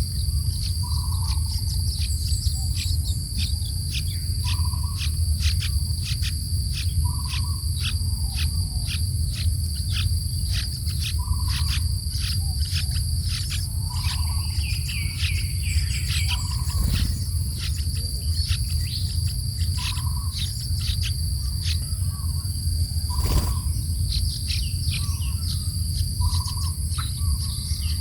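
Steady high insect drone, cricket- or cicada-like, with bird chirps: quick short high notes repeated several times a second, and a lower call about every two to three seconds, over a continuous low rumble.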